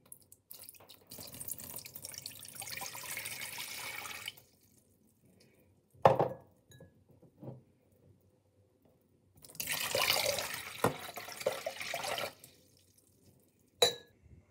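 Water poured into a stainless steel pot, twice, each pour running about three seconds. A single knock comes between the pours, and a sharp tap comes near the end.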